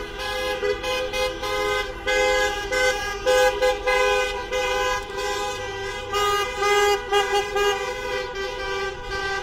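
Many car horns honking at once in a protest horn-blowing caravan, long held blasts and short toots overlapping without a break. Cars rumble past beneath the horns.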